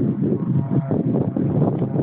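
Wind buffeting the microphone in gusts, over the faint distant drone of a Cessna 185 Skywagon's propeller engine in flight.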